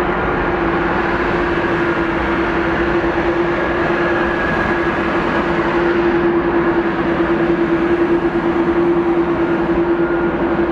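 Boeing 787-9 twin jet engines at takeoff thrust: a loud, steady jet rumble with a constant droning hum underneath.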